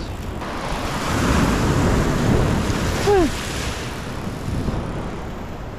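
Ocean surf washing over a rocky shoreline, the wash swelling about a second in and easing off after three seconds, with wind buffeting the microphone. A short falling voice sound about three seconds in.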